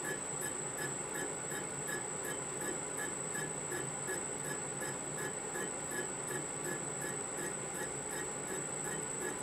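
Metal lathe running, turning a model engine's crankshaft held in an offset fixture while the crank webs are machined: a steady high whine with a regular light tick about three to four times a second.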